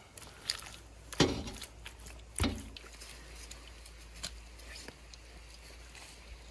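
Wet mud being scooped with a trowel and slapped onto the rim of a tandoor's lid to seal it shut: two loud wet slaps about a second and two and a half seconds in, with lighter taps and scrapes of the trowel around them.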